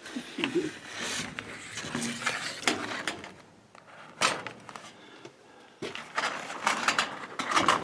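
Handling noise of a cardboard-framed furnace filter: light rustling and scraping with scattered small clicks, quieting for a couple of seconds around the middle except for one sharp click.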